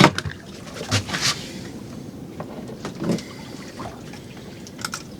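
Water lapping and sloshing against the hull of a small drifting boat. A few sharp knocks and clicks come through, one at the start and a couple about a second in.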